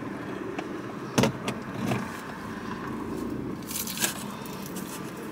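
Small handling noises: a sharp click about a second in, a few light knocks, and a crisp paper rustle near four seconds, over a steady car-cabin hum. They come from a plastic hot sauce bottle being handled and set aside and a fried chicken wing being picked up from its paper wrapping.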